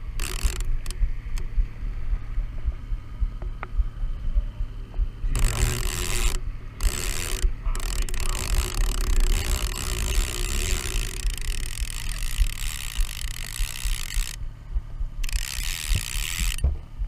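Fishing reel clicking and ratcheting in long stretches as a hooked salmon is fought from the boat, over the steady low hum of an outboard motor.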